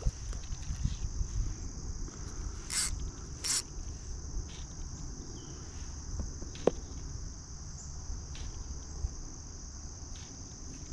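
Steady, high-pitched chorus of crickets and other late-summer insects over a low rumble. Two short, sharp noises come about three seconds in.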